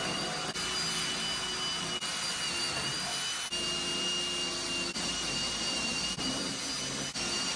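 Cordless drill boring bolt holes through a jon boat's aluminum hull and transom. A steady high whine, dipping briefly several times.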